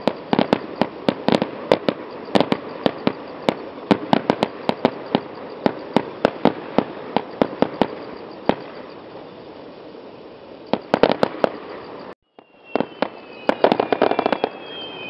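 Aerial fireworks bursting and crackling: a rapid, dense run of sharp pops that thins out after about eight seconds, then a fresh flurry around eleven seconds. After a short dropout near the end the crackling starts again along with a thin high tone.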